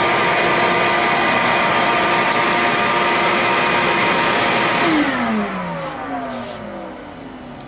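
Electric motor at a CNC mini mill running with a steady hiss and whine, switched off about five seconds in and winding down with a falling whine.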